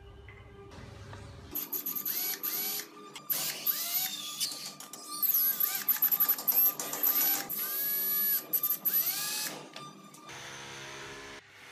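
Cordless drill driving screws into wooden parts, its motor whirring up in repeated short runs as the trigger is pulled and let go.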